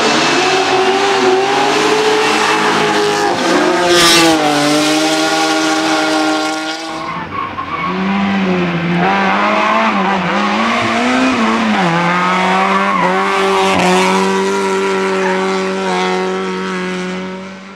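Racing car engines revving hard, with tyres skidding and squealing. There is a short burst of noise about four seconds in, and after about seven seconds an engine holds a fairly steady pitch with small rises and falls.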